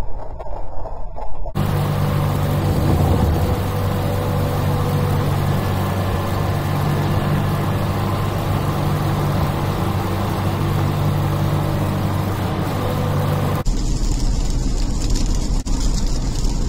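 Car driving at highway speed, heard from inside the cabin: steady tyre and road noise over a low engine hum. After a muffled start it switches abruptly near the end to a deeper rumble with a hiss.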